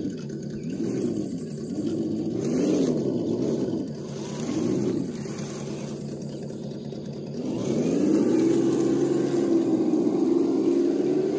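Small electric RC rock crawler's motor and gearbox whining. The pitch rises and falls over and over as the throttle is worked, then holds louder and nearly level from about eight seconds in.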